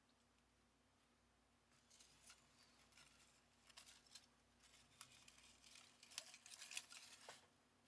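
Faint clicking, tapping and scraping of small metal parts and tools being handled, in scattered bursts that come thickest near the end, while a scooter carburettor is worked on by hand.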